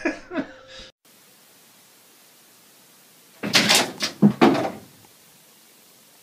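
A cluster of several knocks and thumps in quick succession, lasting about a second and a half, with a faint hiss around it.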